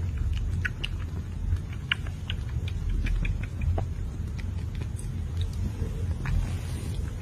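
Kitten suckling milk from a small feeding bottle: irregular little wet clicks and smacks from its mouth on the teat, over a steady low rumble.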